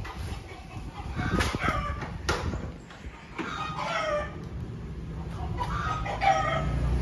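Chickens clucking, with a rooster crowing, in short scattered calls. A low steady rumble builds near the end.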